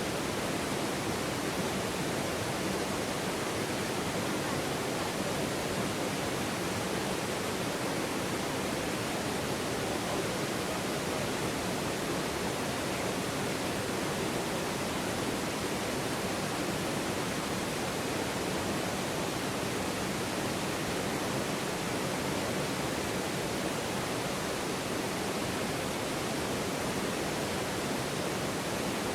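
River water flowing in a steady, even rush, with no separate splashes or changes.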